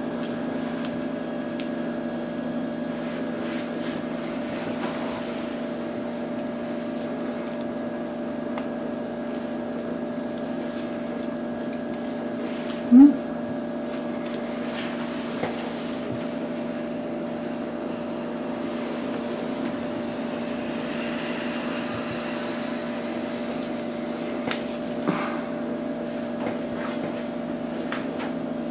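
Steady mechanical hum of a running appliance, a drone of several constant tones, with a few faint taps. A short rising tone about 13 seconds in is the loudest moment.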